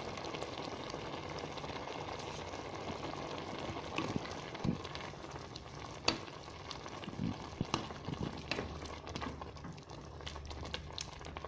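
Chicken sauce with milk and tomato paste sizzling in a pan on the stove, with a spoon knocking and scraping against the pan in scattered clicks from about four seconds in.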